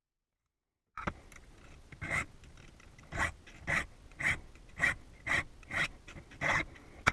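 Hand file rasping on a metal key blank, cutting a rough key: about eight even strokes, roughly two a second, starting about a second in.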